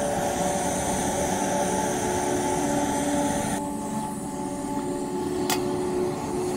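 Gas canister stove burning steadily under a lidded pot of water being heated. A single sharp click comes about five seconds in.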